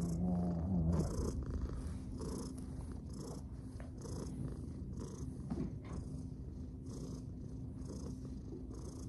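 Domestic cat purring steadily while being stroked, the purr swelling and fading in a regular rhythm with each breath. There is a brief low humming tone in the first second.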